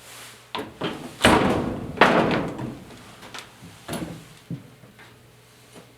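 Handling noise: a couple of light knocks, then two rough scraping or rustling noises about a second and two seconds in, followed by a few scattered taps.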